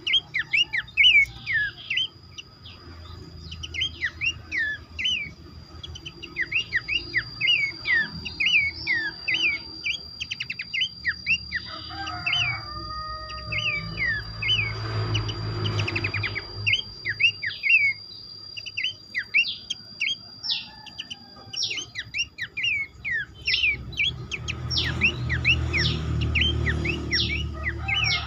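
Many Abbott's babblers (pelanduk semak) chirping together in a dense chorus of short, sharp, downward-sliding notes that overlap several to the second. A thin steady high tone runs underneath, and a low rumble swells up twice.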